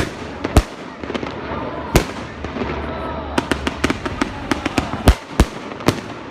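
Aerial fireworks bursting in a rapid, irregular series of bangs and crackles. Louder single booms come about half a second in, around two seconds in and several times near the end.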